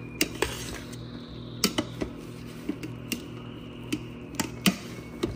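Metal spoon knocking and scraping against a stainless steel pot as cooked rice is stirred and fluffed: irregular clinks, about a dozen in a few seconds, over a steady low hum.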